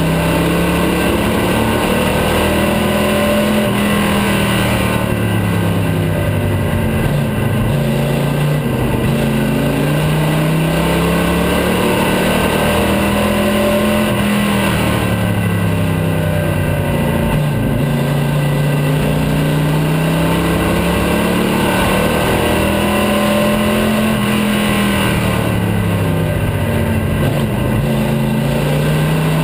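Vintage stock car's engine heard from inside the cabin at racing speed, its pitch falling as the driver eases off for each turn and climbing again down each straight, about every ten seconds.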